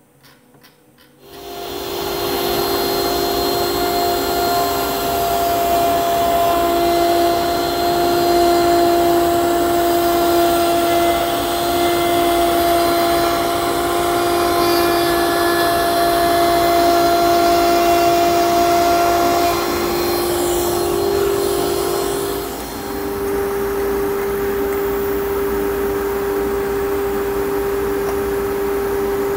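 A router table's router spinning a 1-inch core box bit starts about a second in and runs steadily while a dense cocobolo board is fed past the bit. This is a shallow first pass of two. The machine's sound dips and changes briefly about 22 seconds in.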